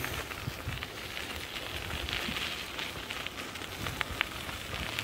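Bicycle rolling along a trail: a steady crackling hiss of tyres on the grit of the path, with a few sharp ticks and a low rumble underneath.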